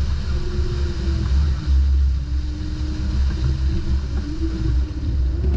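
Strong wind rumbling on the microphone and water rushing past the hull of a J/46 sailing yacht surging downwind through big waves, with a faint steady tone.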